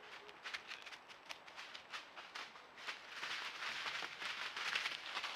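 An animal moving through dry leaf litter close to the trail camera: irregular crunching and rustling steps, growing louder and busier about three seconds in.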